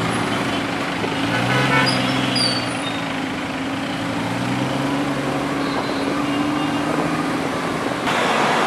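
Porsche 911's flat-six engine running at low revs in slow city traffic, its pitch drifting gently up and down over traffic noise. A few brief high-pitched tones sound about two seconds in.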